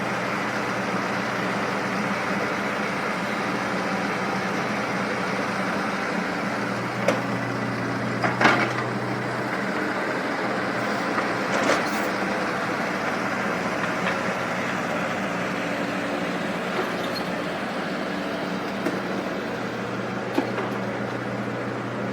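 Komatsu PC75 excavator's diesel engine running steadily while it works, its note growing stronger for a few seconds twice as it takes load. A few sharp knocks and clanks punctuate it.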